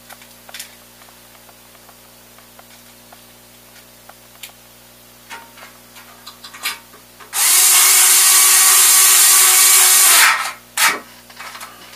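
Cordless electric screwdriver spinning for about three seconds as it drives a 10-32 screw into a PEM nut on a sheet-metal motor bracket, then a short second burst. Light handling clicks come before it.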